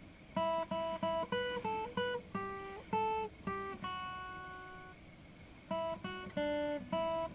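Guitar being strummed: a run of short chords, one chord left to ring and die away near the middle, then the short chords pick up again.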